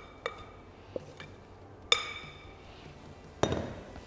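Glass mixing bowl knocking and clinking against a stainless steel worktop as the potato mixture is tipped out and the bowl set down: several sharp knocks, the loudest about two seconds in ringing briefly, then a duller knock near the end.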